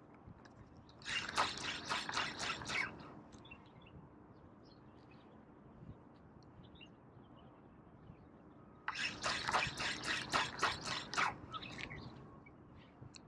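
Fishing reel being cranked in two bursts of about two seconds each, a rapid run of clicks as the line and lure are wound in.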